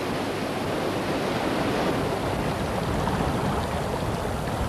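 Water rushing steadily through an open canal lock gate, an even watery rush.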